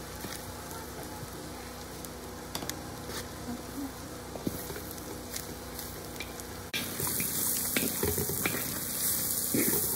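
Pork and onions sizzling in a steel wok while a wooden spatula stirs, scraping and tapping the metal with scattered small clicks. The sizzle gets louder about seven seconds in.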